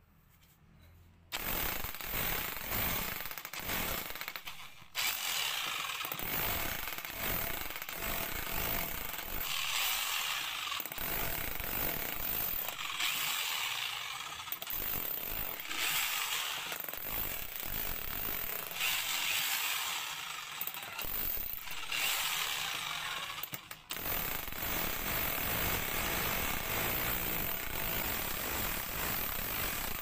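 Mitsushi electric jackhammer (a rotary hammer set to hammer-only) driving a chisel bit into a concrete slab, hammering rapidly and steadily as it breaks the concrete up. It starts about a second and a half in, stops briefly around five seconds, and stops again briefly near the end.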